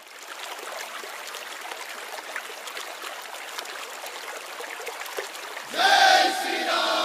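Intro of the added soundtrack: a steady, water-like rushing hiss, then about six seconds in a louder pitched sound with several bending tones, just before the music begins.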